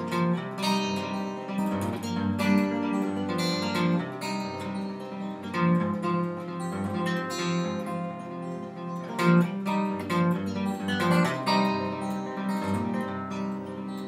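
Solo acoustic guitar playing a steady rhythm of picked chords, the instrumental intro of a country-folk song.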